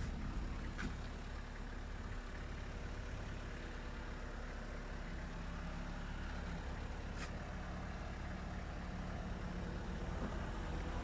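Fiat Fiorino van's engine idling steadily with a low hum, with a couple of faint clicks.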